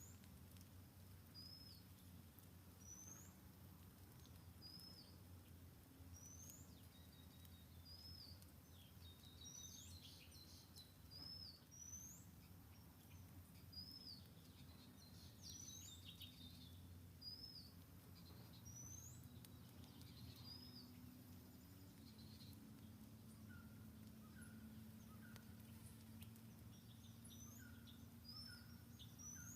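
Faint, repeated high bird calls: a quick upward-sweeping chirp alternating with a short slurred note, one about every second or two, over a low steady hum.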